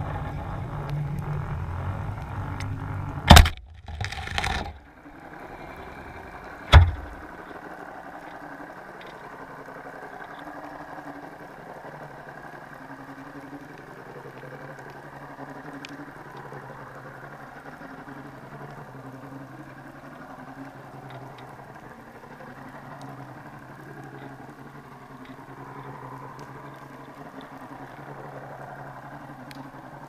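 Muffled underwater sound through a camera housing on a sinking craypot: a boat engine's low drone, louder for the first few seconds, then settling to a steady low hum. Two sharp knocks stand out, about three and seven seconds in.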